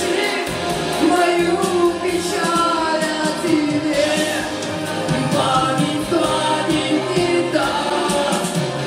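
A man singing a Russian song into a hand-held microphone, with instrumental backing music.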